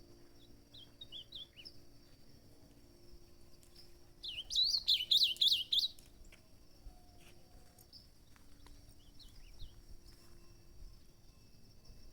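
Caged ultramarine grosbeak (azulão) singing one short, loud warbling phrase about four seconds in, with a few faint chirps before and after it. A steady high insect drone runs underneath.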